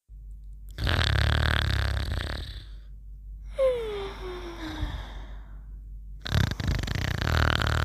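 A sleeper snoring in a slow cycle: a rumbling snore on the breath in, a whistle-like tone falling in pitch on the breath out, then a second rumbling snore near the end.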